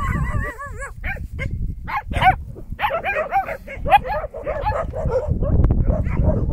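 Puppies whining and yipping: many short, high, wavering calls in quick succession, over a low rumble.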